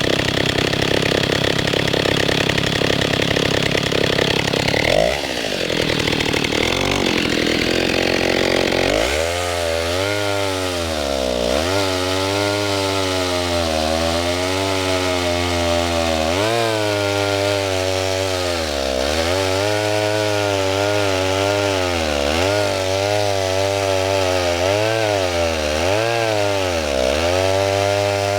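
Stihl 08 S two-stroke chainsaw running at high revs, dropping in pitch about five seconds in; from about nine seconds its engine note repeatedly sags and picks up again every couple of seconds, as when it is cutting wood under load.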